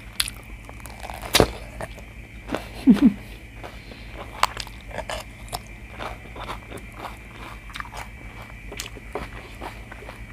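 Close-up crunching bites into a raw bell pepper and chewing of it, a run of small crisp clicks with a loud crunch about a second and a half in. A brief hum of the voice comes about three seconds in.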